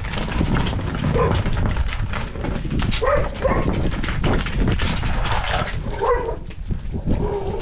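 An animal calling, about five short cries that rise and fall in pitch, over a steady low rumble.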